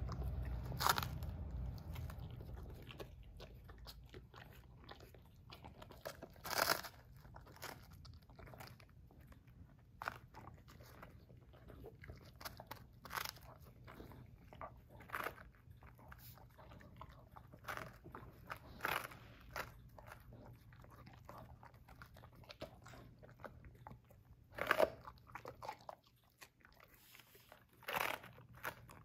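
Basset hound biting and chewing a piece of romaine lettuce: irregular crunches a second or two apart.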